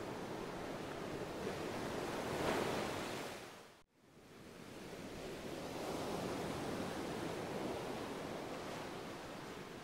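Steady rushing noise, like surf or hiss. It swells, drops away to silence about four seconds in, then fades back up.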